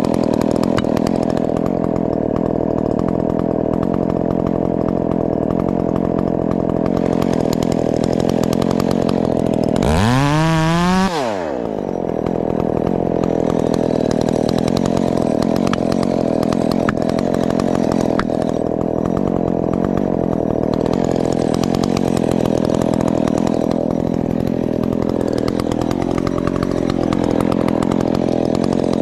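Ported Husqvarna 372 XP two-stroke chainsaw running steadily. About ten seconds in it revs in a quick rising whine that cuts off sharply, then it settles back to steady running.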